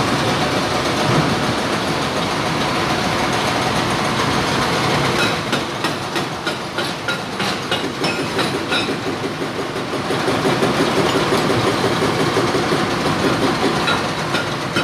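Excavator-mounted hydraulic rock breaker hammering its chisel into stone: a rapid, continuous pounding. For a few seconds in the middle it drops to separate sharp knocks, then comes back louder.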